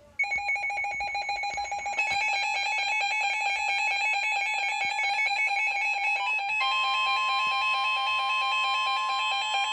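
Emergency alert attention tone: a loud, rapidly pulsing electronic ringing tone that steps up about two seconds in and is joined by a steady higher tone about six and a half seconds in.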